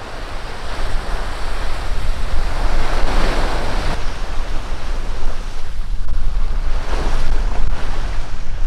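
Sea waves washing onto a beach, the surf swelling about three seconds in and again about seven seconds in, with heavy wind rumbling on the microphone.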